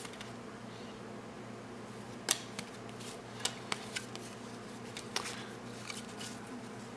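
Basketball trading cards being flipped through one at a time by hand: about eight short crisp snaps and swishes of card stock as cards are slid off the stack, over a faint steady hum.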